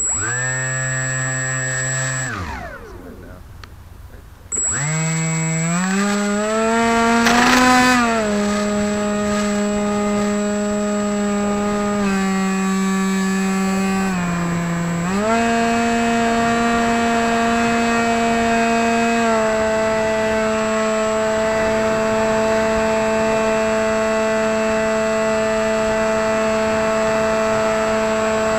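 Hawking 2826 2200 Kv brushless outrunner motor spinning a 6x4 APC pusher propeller, heard from the plane's onboard camera. It runs up briefly and winds down after about two seconds, then spins up again with a rising whine about four and a half seconds in as the plane takes off and climbs, and settles into a steady hum with a few small throttle steps. A thin, steady high-pitched whine sits above it.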